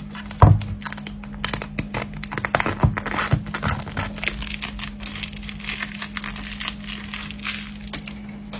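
Rapid crinkling and clicking as hands work over an iPad during a screen replacement, with a sharp knock about half a second in. A steady low hum runs underneath.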